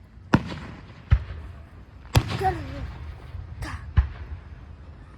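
Fireworks going off at a display: five sharp bangs at uneven spacing over a steady low rumble.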